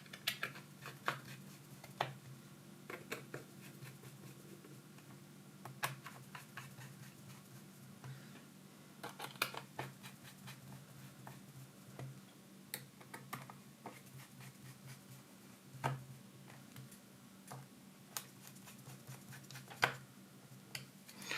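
Faint, irregular small clicks and ticks of a screwdriver driving Phillips screws back into a laptop's bottom cover, over a steady low hum.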